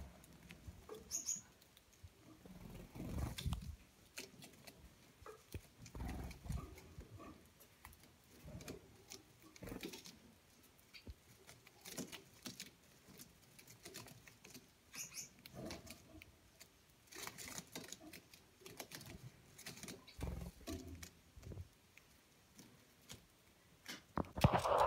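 Gouldian finches feeding from a shallow seed dish: faint scattered pecks and crackles of seed being husked, with a few soft bumps and a couple of brief high chirps.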